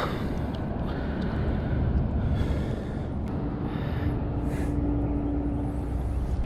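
A steady low engine drone, with a steady hum joining about three seconds in, plus a few soft rustles.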